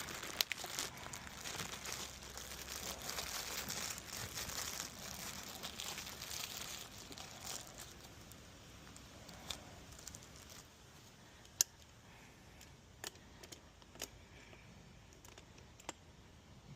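Crinkling, rustling handling noise for about the first half, fading away about eight seconds in, then a quieter stretch broken by several sharp clicks and taps.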